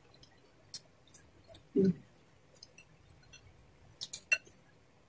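Close-miked eating sounds: soft chewing and mouth clicks, a short low murmur about two seconds in, then a few sharp clicks near the end as a spoon is dipped into a glass bowl of soup.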